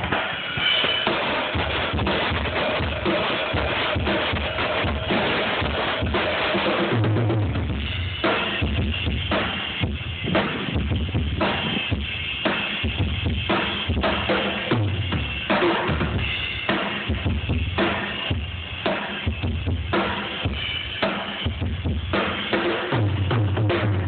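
A full drum kit played as a groove through the PA for a sound check: bass drum, snare, toms and cymbals. The bass drum hits come in heavier about seven seconds in.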